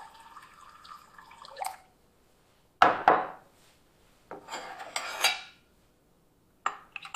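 AI-generated tea-making foley from Kling 2.6. Tea is poured from a gooseneck kettle into a porcelain cup and stops just under 2 seconds in. A sharp knock follows, the loudest sound, as something is set down on the wooden table. Then comes a scraping rattle, and near the end a teaspoon clinks repeatedly against the cup.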